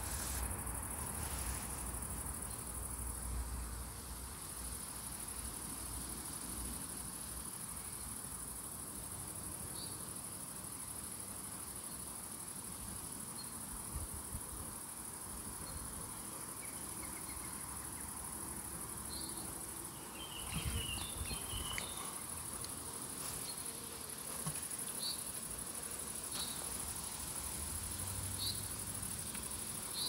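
Crickets chirring in a steady, high-pitched trill, with a few short bird chirps scattered through, a small cluster about two-thirds of the way in.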